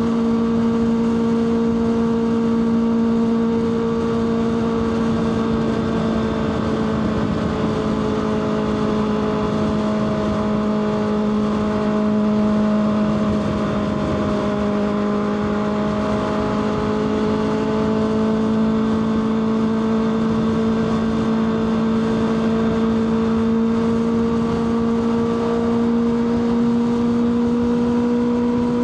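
Kawasaki ZX-6R's inline-four engine running at steady cruising revs, its pitch sagging slightly midway and then climbing back, under a constant rush of noise.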